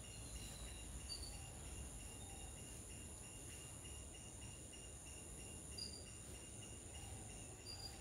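Steady insect chorus, a continuous high-pitched trilling with a faint even pulsing beneath it. Three brief high chirps come through it, about a second in, near six seconds, and near the end.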